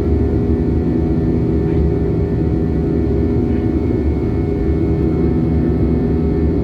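Steady drone of an airliner's engines and airflow heard inside the passenger cabin in flight, a low, even hum with a few steady tones in it.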